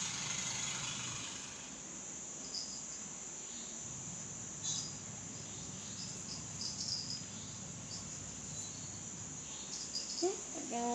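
Steady high-pitched insect trill running throughout, with a few faint ticks. A short pitched vocal sound comes near the end.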